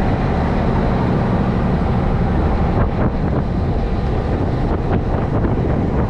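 Party boat's engine running steadily under a steady rush of wind buffeting the microphone, with a couple of faint knocks about three and five seconds in.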